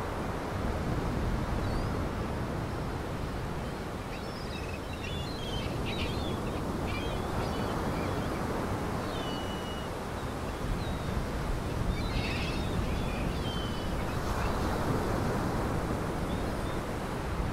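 Steady rush of waves and wind, with short bird calls scattered over it, clustered a quarter of the way in and again after about two-thirds.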